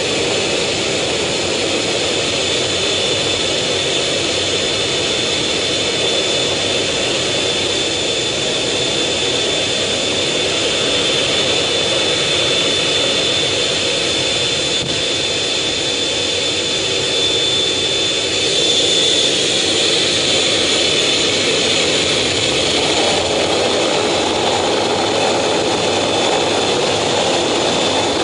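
Fighter jet engines running, a steady loud rush with a high whine, heard from inside the cockpit while the jet taxis on the carrier deck. The noise grows louder about two-thirds of the way through.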